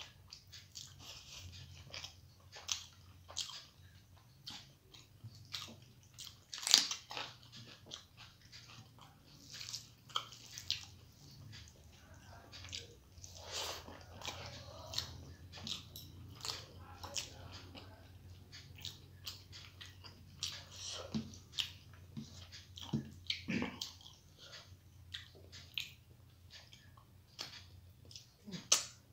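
Close-up eating sounds of a person chewing rice and rohu fish curry eaten by hand: irregular wet smacks and clicks of the mouth, the loudest a sharp click about seven seconds in, over a steady faint low hum.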